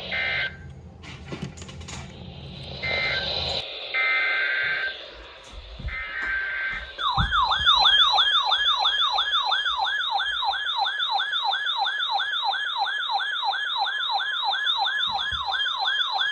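Emergency Alert System tones. First come separate bursts of SAME digital header data, a harsh buzzing screech, about a second each with short gaps between. Then, from about seven seconds in, a loud attention tone wails up and down quickly like a siren, about two and a half sweeps a second, signalling a new alert.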